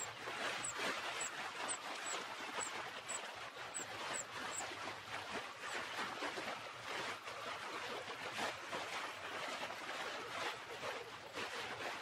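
Small waves washing and lapping on a shingle beach, in an even wash of noise. In the first few seconds there is a run of faint high chirps, about two a second.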